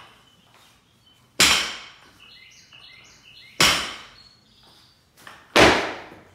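A loaded barbell with bumper plates clanking three times during snatch reps. Each clank is sharp and loud, and rings out over about half a second.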